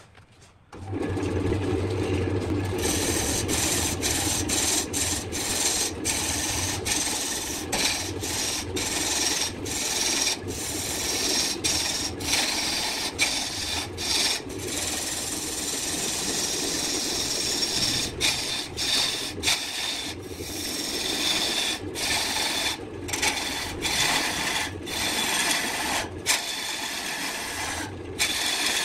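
BURT wood lathe starting up about a second in, then a turning gouge cutting into a large burned log spinning on it. A steady rasping hiss of shavings over the motor hum, broken by many brief gaps.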